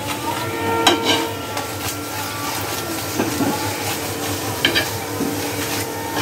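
Stuffed paratha frying in a kadai, with a spatula clinking and scraping against the pan a few times.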